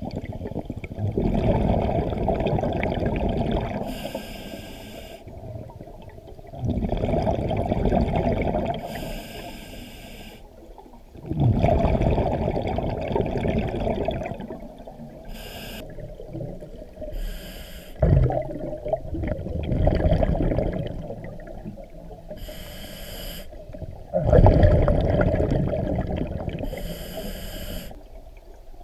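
Scuba diver breathing through a regulator underwater: a short hiss on each inhalation, then a longer, louder rush of exhaled bubbles. The cycle repeats about every five to six seconds.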